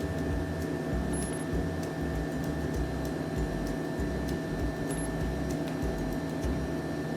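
Steady machine hum with two constant tones over an uneven low rumble, and a few faint ticks.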